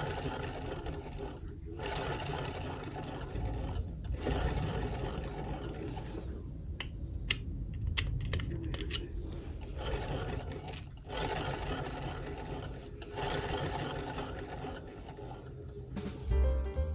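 1910 Singer 28K sewing machine mechanism running as its balance wheel is turned by hand, a steady whir broken by several brief pauses and a few sharp clicks, as fresh oil is worked into dry moving parts. Piano music comes in near the end.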